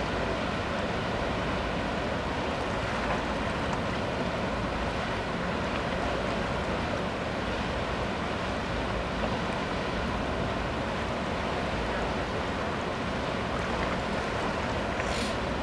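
Ferry manoeuvring under power into its berth: a steady rush of engine noise and churning propeller wash, with no change in level.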